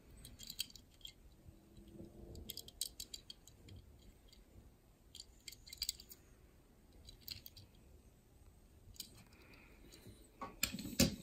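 Faint scattered clicks and light rattles of a die-cast Hot Wheels toy car handled in the fingers, with a few sharper clicks near the end.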